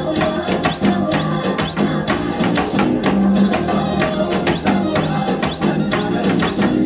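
A Telugu film song playing, with a toy drum set struck with sticks along to it: many sharp drum hits, several a second, over the music.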